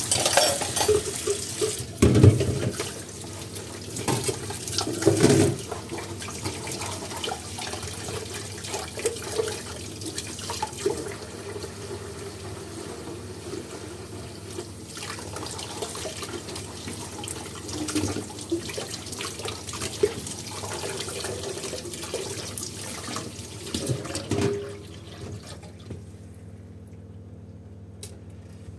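Kitchen tap running into a sink while dishes are washed, with several loud knocks and clinks of dishes being handled. The running water stops near the end.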